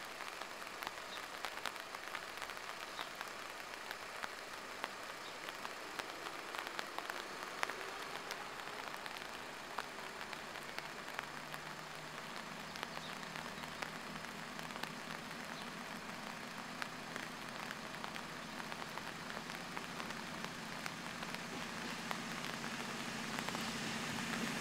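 Rain pattering steadily with many small ticks. From about halfway a low hum comes in and grows louder toward the end: an approaching Class 220 Voyager diesel train.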